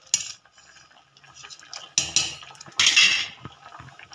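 Ladle stirring a pot of simmering sambar, clinking and scraping against the metal pot: a short clink just after the start, another about two seconds in, and a longer, louder scrape near three seconds.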